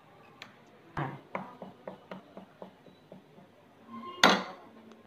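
Steel spoon clinking and scraping against a bowl while cream is scooped and stirred into batter: a run of small irregular clicks, then one louder clink about four seconds in.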